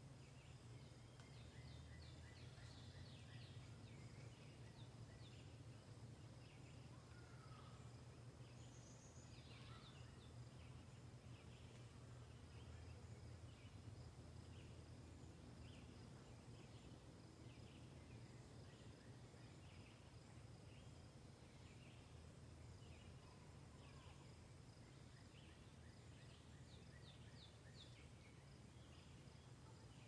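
Faint woodland ambience: birds calling on and off, with short calls repeated about once a second, over a steady high insect drone and a low steady rumble.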